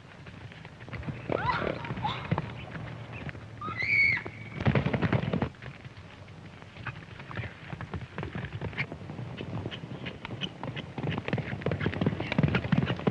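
A horse neighing shrilly twice as it rears and plunges under its rider, with heavy stamping just after the second cry. Then rapid hoofbeats on dry ground as it gallops off, growing louder near the end.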